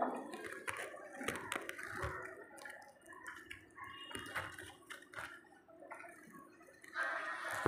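Faint irregular rustling and small clicks of leaves and vines brushing against a hand and a phone held among them.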